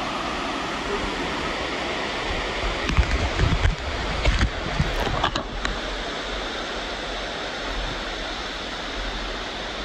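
Steady rush of falling and running water, a continuous even noise. A few low thumps and short knocks come between about three and five and a half seconds in.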